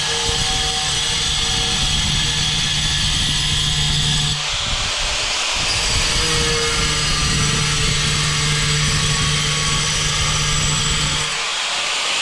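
Angle grinder cutting into hard tile, running steadily. Its low tone drops out briefly about four seconds in and again near the end.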